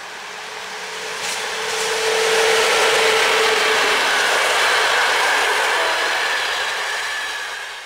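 Passenger train passing close by: an EU07-family electric locomotive hauling PKP Intercity coaches. The rush of wheels on rail grows louder as it approaches and stays loud while the coaches go by, with a steady whine from the locomotive in the first few seconds.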